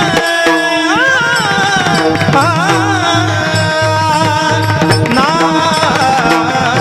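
Marathi Warkari devotional bhajan music: a tabla-style hand drum keeps a steady rhythm under a sliding, ornamented melodic line.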